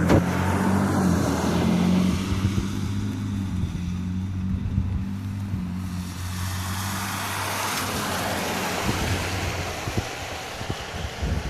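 A car engine runs with a steady low hum under an even hiss of hard rain and wet road noise. The engine hum fades out about six seconds in, leaving the rain hiss and a few low knocks of wind on the microphone near the end.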